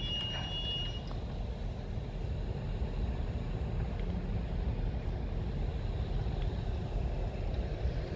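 Freight wagons loaded with steel rolling slowly past, a steady low rumble mixed with wind buffeting the phone's microphone. A faint wheel squeal fades out about a second in.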